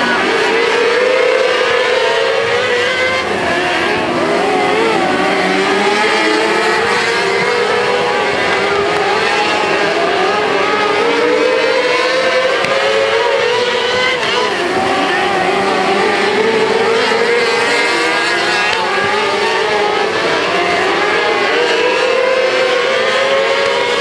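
Engines of a pack of wingless open-wheel dirt-track race cars running flat out around the oval. Several engines rev high at once, their pitches rising and falling as the cars go down the straights and through the turns.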